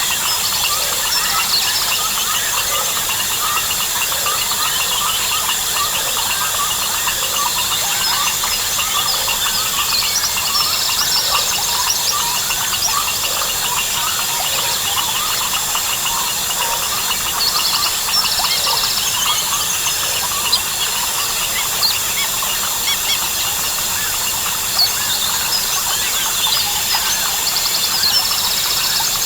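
Dense jungle chorus of crickets, frogs and birds: a steady high insect drone under many overlapping short chirps and calls, with bursts of fast pulsed trills every several seconds.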